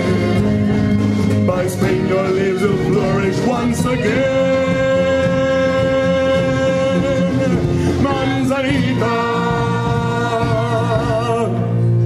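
A choir singing long held notes with vibrato, accompanied by violins, keyboard and acoustic guitar.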